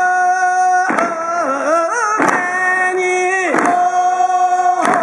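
Voices singing in long held notes with ornamented bends between them, in a traditional Japanese folk style, over a sharp knock that falls about every 1.3 seconds.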